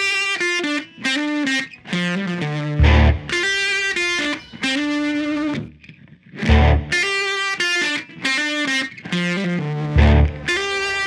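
Background music: distorted electric guitar playing sustained notes and chords, with a heavy low drum hit about every three and a half seconds.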